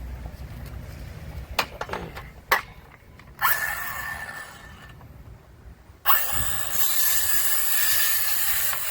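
Battery-powered saw cutting brick molding trim to length, in two runs of a few seconds each with a brief stop between, after a couple of sharp clicks.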